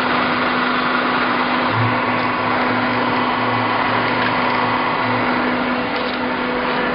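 Sawdust pallet block making machine running steadily: a dense, even machine noise with a constant low hum.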